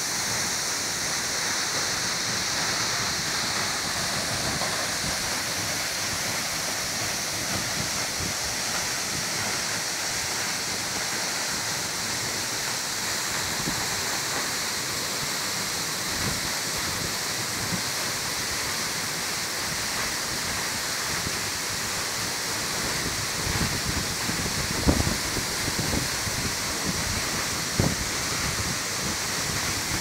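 Galaboda waterfall pouring onto rock, a steady close rushing of falling water. A couple of brief thumps stand out near the end.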